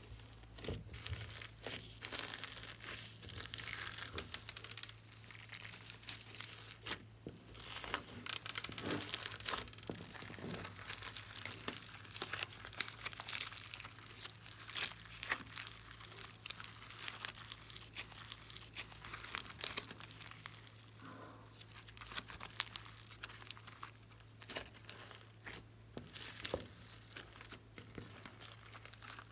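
Glossy slime mixed with sprinkles and beads being squished, stretched and folded by hand: a continuous run of irregular sticky crackles, pops and soft crunches, with one sharper snap about six seconds in.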